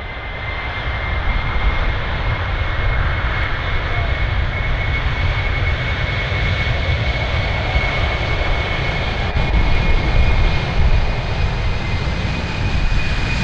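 Boeing 747-400's four jet engines at takeoff power on the takeoff roll: a loud, steady roar with a deep rumble underneath and a high whine that rises slightly near the end.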